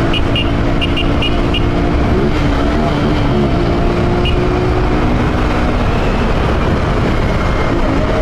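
Honda CG Titan 150's single-cylinder four-stroke engine running under way, with its air filter and intake hose removed so the intake is open. The engine note wavers and dips about two seconds in, picks up again, then falls away near six seconds.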